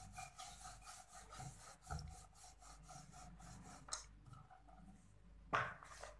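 Wooden rolling pin rolling out paratha dough on a wooden board: faint, repeated back-and-forth rubbing of wood over dough. A louder knock comes near the end.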